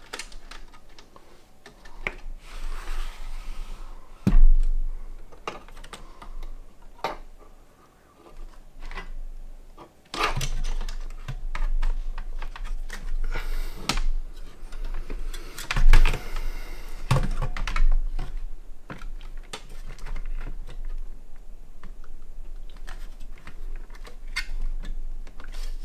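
Hands working cables and components into a cramped Lian Li Q58 small-form-factor PC case: irregular small plastic and metal clicks and knocks, with a short spell of rustling a couple of seconds in and louder knocks about four and sixteen seconds in.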